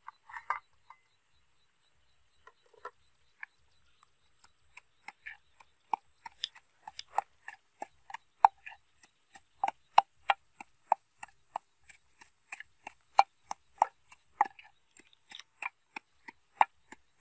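Wooden pestle pounding in a clay mortar: a few scattered knocks at first, then a steady beat of about two to three knocks a second from about six seconds in.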